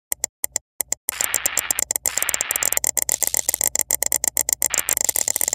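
End-card sound effect: a few separate clicks, then a dense run of rapid clicks, about ten a second, over crackling static hiss.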